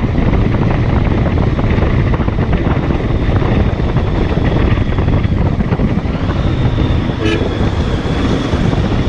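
Mahindra Mojo 300 motorcycle being ridden, its single-cylinder engine running steadily under the rush of riding noise. A brief pitched tone sounds about seven seconds in.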